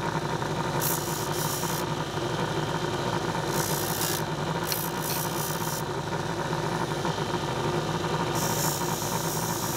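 Small bench-top disc sander's motor running steadily while the head of a stainless steel bolt is pressed to the disc to polish it, with a grinding scrape about a second long four times.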